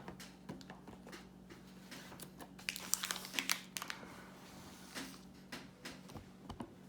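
Plastic wrapper of a trading-card pack crinkling and rustling in scattered bursts as it is handled and opened, busiest around three seconds in.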